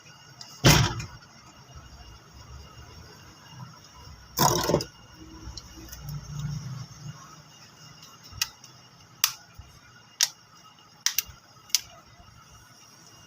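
Two heavier knocks, then five short sharp clicks about a second apart, like small hard objects being set down or handled.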